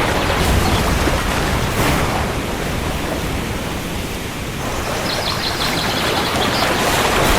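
Steady heavy rain with a low rumble underneath, easing a little around the middle. A faint high chirping comes in about five seconds in.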